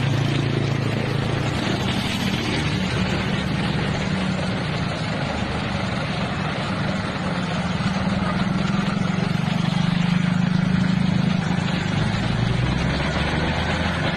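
Road traffic noise: vehicle engines running steadily, with a continuous low hum.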